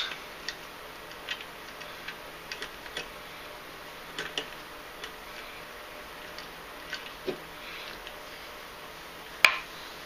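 Paracord being worked by hand on a wooden jig: soft scattered clicks and rustles as the strands are tucked and pulled tight through the weave next to a plastic buckle, with one sharper click near the end.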